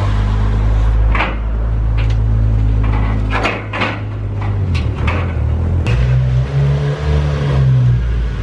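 A car being unloaded from a car trailer: a steady low engine drone that shifts in pitch a couple of times, with a series of sharp metal clunks as the wheels go over the trailer and its ramps.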